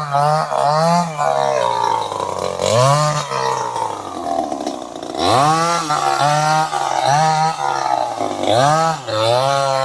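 Two-stroke chainsaw engine running at high revs, its pitch dipping and climbing back every second or so as the throttle is worked. About halfway through it sags lower for a moment, then revs sharply back up.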